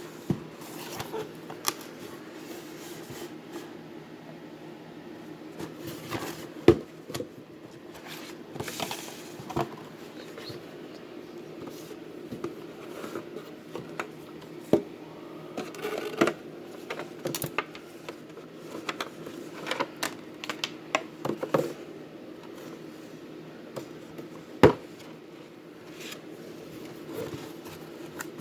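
Unboxing of a razor: irregular clicks, taps and rustling scrapes as the packaging and razor are handled, over a steady low hum, with two louder sharp knocks, one about seven seconds in and one about twenty-five seconds in.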